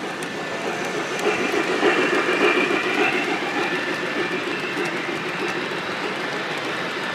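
Model train hauled by MTH ES44AC diesel locomotives running on the layout: a steady rumble of wheels on track that swells about a second in and eases after about three seconds.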